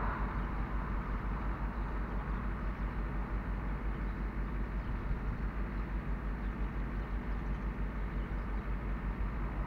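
Vehicle engine idling steadily, with a low rumble underneath.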